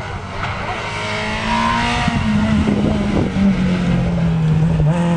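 Rally car engine running hard as the car comes through a bend and passes close by, growing louder about a second and a half in. The engine note drops in steps as it goes past.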